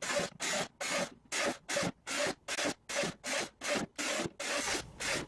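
Quick back-and-forth rasping strokes of a hand tool on plastic, about three a second, as air-vent holes are worked into a homemade vacuum's housing.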